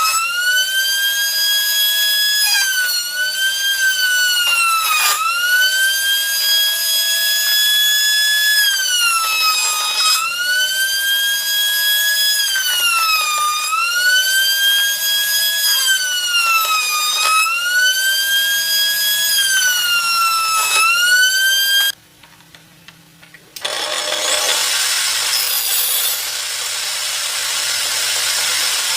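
High-speed electric power tool cutting wood. Its motor whine drops sharply in pitch each time it bites into the wood and climbs back as it frees up, about every two to three seconds. After a brief break, a steady rasping sawing noise takes over.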